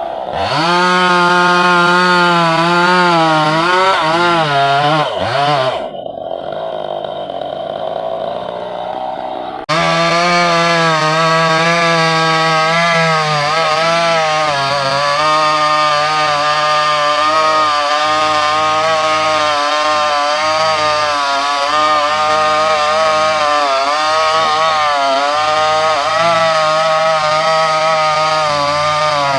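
Two-stroke chainsaw running at high revs and cutting wood, its pitch wavering under load. About six seconds in it drops to a quieter, lower idle for a few seconds, then comes back abruptly at full throttle and keeps cutting.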